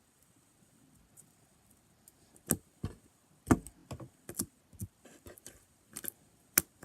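Sticky, over-activated slime clicking and popping as it is squeezed and pulled off the hands: about a dozen irregular sharp snaps starting a couple of seconds in.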